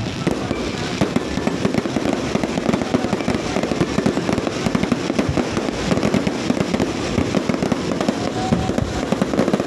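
Aerial fireworks crackling: a dense, unbroken run of small pops and bangs.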